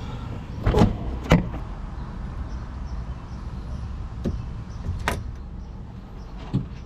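A steel chain and snap hook being handled and hooked onto an eye bolt in a plywood board: a handful of sharp metal clinks and knocks, the two loudest about a second in, over a low steady rumble.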